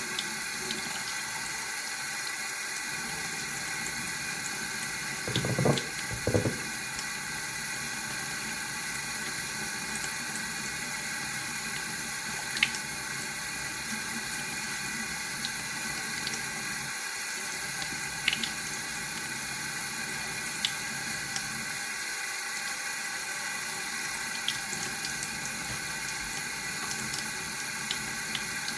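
Water running steadily from a tap into a sink, with two brief low thuds about six seconds in and a few faint clicks scattered later.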